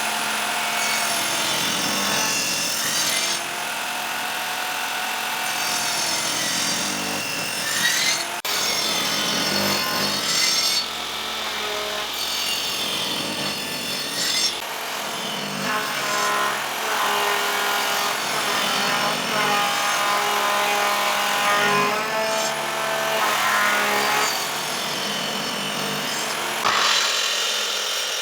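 A power tool working on wood, running continuously. Its motor pitch dips and recovers every few seconds as it bears into the wood.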